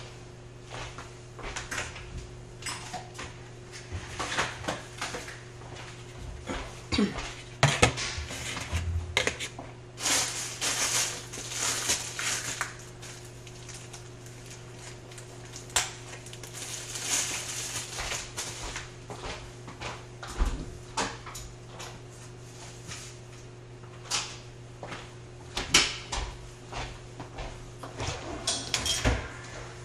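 Kitchen clatter: dishes, cutlery and drawers or cupboard doors being handled, a string of irregular knocks and clinks with a few brief hissy rushes, over a steady low hum.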